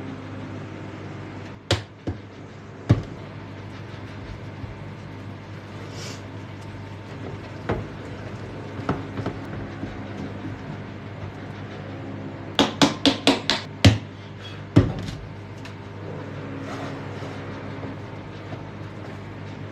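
Kitchen work: scattered sharp knocks and clatters, with a quick run of about six knocks a little past halfway, over a steady background hum.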